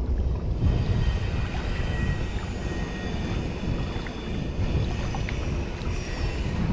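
Wind buffeting the microphone in a steady, uneven rumble, over sea water washing against shoreline rocks.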